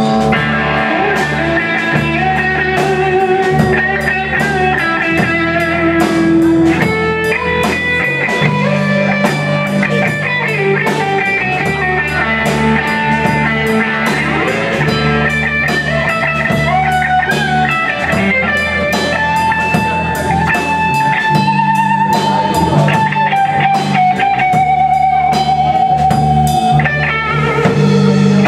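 Live rock band playing an instrumental passage: electric guitar lead with long held, bending notes over a bass line and a steady drum-kit beat.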